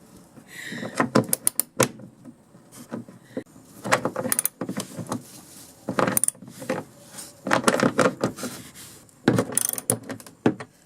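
A wrench working the microwave's mounting nuts loose: several short bursts of metal clicking and clinking with pauses between.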